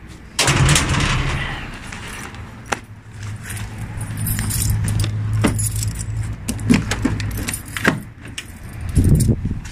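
Keys jangling with a string of sharp clicks and knocks from a door being handled and then a car door being opened, over a steady low hum through the middle.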